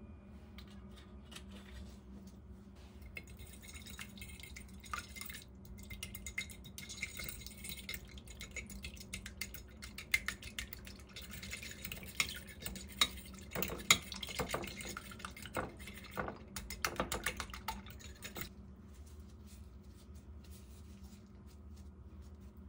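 A metal fork beating eggs in a shallow ceramic dish: fast, uneven clinking and scraping of metal against the dish. It starts about three seconds in, is loudest a little past the middle, and stops a few seconds before the end.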